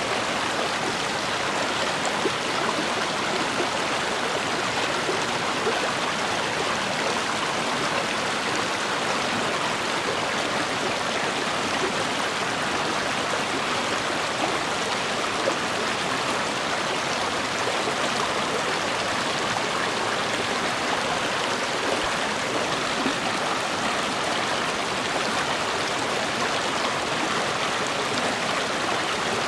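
A river or stream flowing steadily over rocks: a continuous rushing and babbling of water, even in level throughout.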